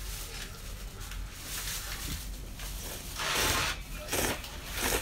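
Cold soba noodles with grated yam and seaweed being slurped: a long noisy slurp about three seconds in, then two shorter ones.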